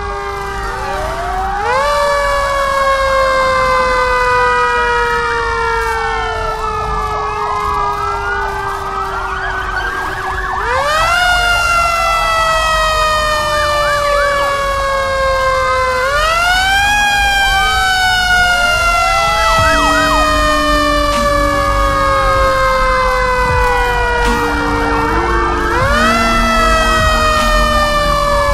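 Emergency sirens wailing. The main siren winds up quickly and slides slowly down, about four times, while a second siren's shorter rise-and-fall wails overlap it.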